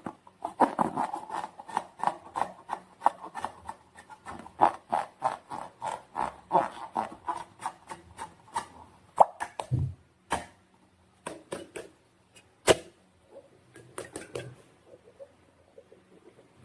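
Slime being squished and worked by hand: a quick run of wet, sticky squelches and clicks, about three to four a second, that thins out after about nine seconds into scattered clicks with a couple of sharper ones.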